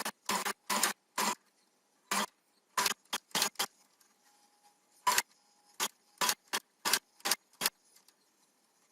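A hand tool working wood: about a dozen short, irregular scraping strokes that stop near the end.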